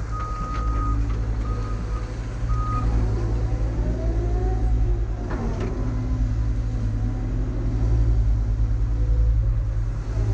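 Heavy earthmoving machine's diesel engine running steadily while its reversing alarm beeps three times in the first few seconds as it backs up. A rising and falling whine follows, then a single metallic knock about five seconds in.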